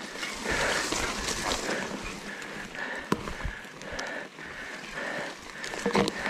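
Trek Fuel EX 7 full-suspension mountain bike and its rider moving over rough, boggy forest ground: a steady rustling with scattered knocks and rattles. The sharpest knock comes about three seconds in and a cluster of knocks near the end.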